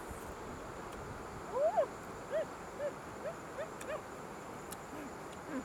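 A puppy whimpering: one longer rising-and-falling whine about a second and a half in, then about five short whines in quick succession, about every half second. A steady high hiss runs underneath.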